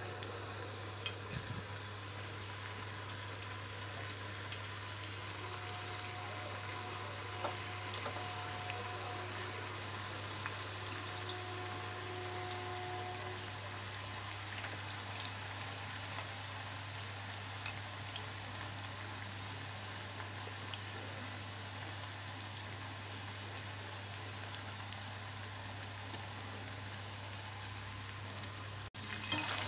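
Raw banana slices deep-frying in hot oil in a kadai: a steady sizzle dotted with small crackles and pops, over a low steady hum.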